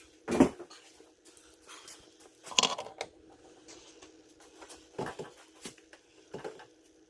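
Truck parts being handled and worked into place: a sharp knock, a rattling clatter about two and a half seconds in, then three lighter knocks. A steady low hum runs underneath.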